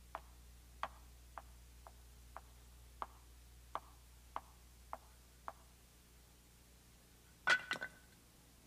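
Light, sharp taps about two a second, then a short, louder clatter of three or four knocks near the end.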